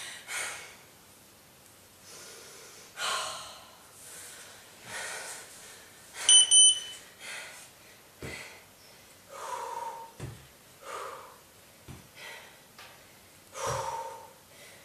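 A woman breathing hard, with sharp exhales every second or two during a bodyweight leg-lift exercise, and a few soft thuds. About six seconds in comes a short double electronic beep, the loudest sound.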